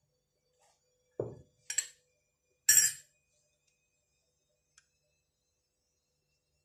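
A glass bowl set down with a dull knock, then two sharp clinks of a metal spoon against glass, the second the loudest, and a faint tick a couple of seconds later.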